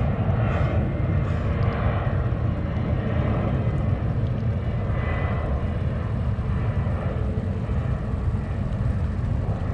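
Airplane engines passing overhead: a steady, low rumble.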